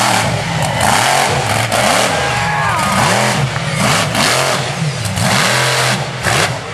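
Monster truck engine revving up and down again and again in quick throttle blips as the truck drives across the dirt arena.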